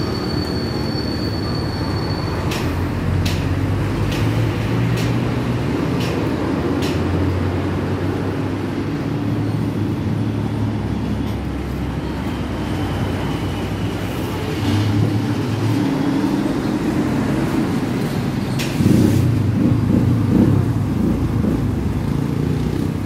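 Road traffic: motor vehicle engines running and passing close by, heard as a steady low rumble. A row of sharp clicks comes a few seconds in, and it gets louder near the end.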